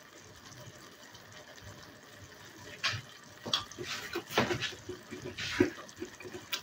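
Kangkong cooking in its adobo-style sauce in a pan: a faint bubbling simmer, with irregular pops and clicks from about three seconds in.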